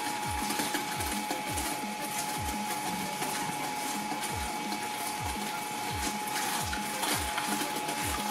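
Twin-shaft shredder running, its cutter discs slowly grinding through a half watermelon: a steady mechanical whine over a low rhythmic pulse about twice a second.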